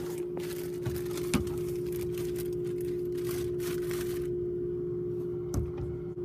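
Rustling and handling noise with a few knocks, over a steady hum; the rustling stops about four seconds in, and there is one more knock near the end.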